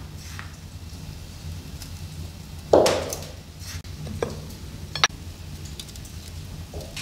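Kitchen handling sounds from small glazed ceramic spice pots: a loud knock about three seconds in, then two small ringing clinks as a ceramic lid is lifted and set down, over a faint steady low hum.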